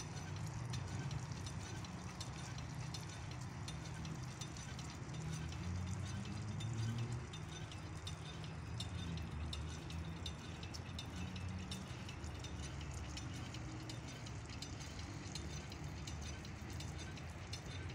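Garden sprinkler spraying water over ivy with fast, light clicking, over a low steady rumble.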